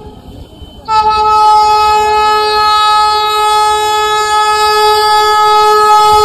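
A train horn sounding. It drops away at the start, then comes back about a second in as one long steady note held at a single pitch.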